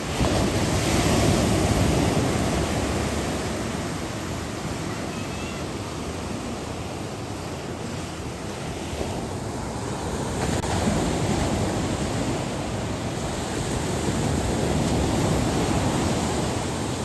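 Ocean surf breaking on a beach: a steady wash of waves that swells twice, just after the start and again through the second half.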